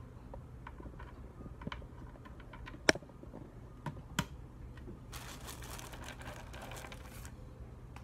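Small plastic clicks and snaps of Gateron Milky Yellow mechanical keyboard switches being handled and pressed into a GK64X hot-swap board. The sharpest snap comes about three seconds in and another just after four. From about five seconds in there are a couple of seconds of rustling.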